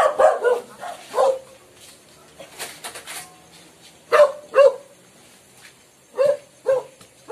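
A dog barking, short barks coming repeatedly, several of them in quick pairs.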